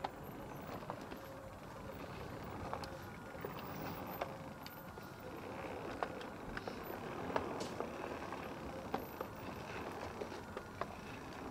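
Setesdalsbanen heritage railway train running, a steady rolling noise with irregular clicks and clanks from the wheels and running gear.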